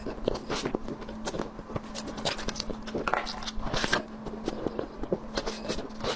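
Close-miked eating: irregular wet clicks, crackles and short crunchy bursts of a person chewing and biting food, over a faint steady hum.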